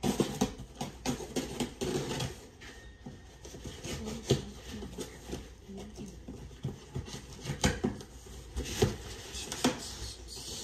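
A box cutter slicing along the packing tape on a cardboard shipping box: irregular scraping and crackling strokes, with a few sharper scrapes and knocks as the cardboard is handled.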